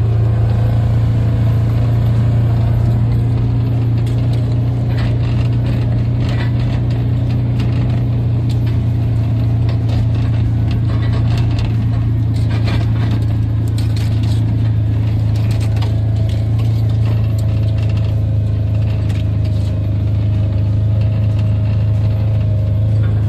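Small gasoline engine of a hydraulic wood splitter running steadily at constant speed, with a few faint knocks and rattles over it.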